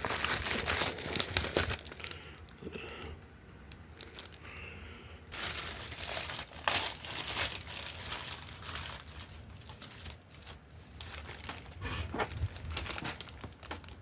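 Packaging of a soldering kit's parts crinkling and rustling as it is handled and opened, in irregular bursts with a quieter stretch a couple of seconds in.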